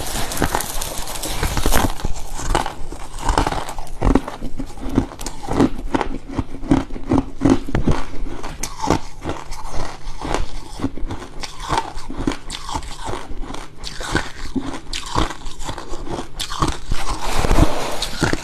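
Freezer frost being bitten and chewed close to the microphone: a run of crisp crunches and crackles in quick succession.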